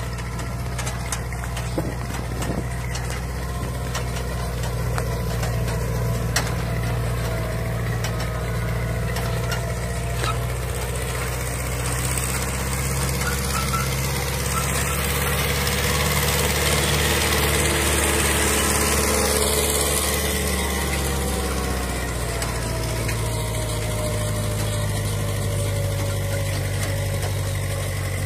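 Digitrac PP51i tractor's diesel engine running steadily under load while pulling a double 20-disc harrow through soil. A rushing noise swells over the engine about halfway through, then fades.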